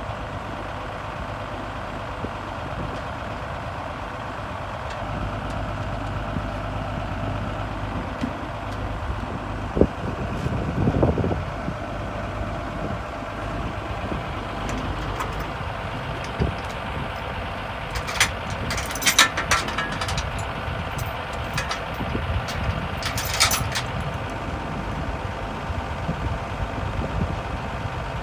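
Komatsu WA250 wheel loader's diesel engine running steadily at work, with a louder surge about ten seconds in. Several sharp metallic clanks and squeaks come about two-thirds of the way through.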